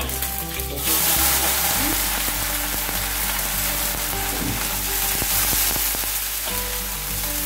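Sweet pea sprouts dropped into hot oil and minced garlic in a steel wok: a loud, steady sizzle that swells about a second in as they hit the oil, with the light clicks of a metal ladle tossing them.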